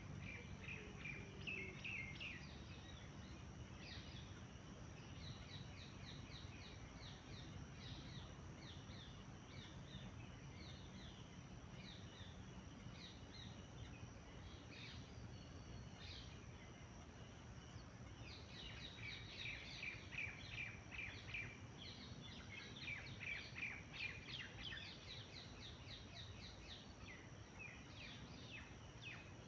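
Small songbirds chirping and singing in quick series of short notes, busiest in two fast runs about two-thirds of the way through, over a faint steady low rumble.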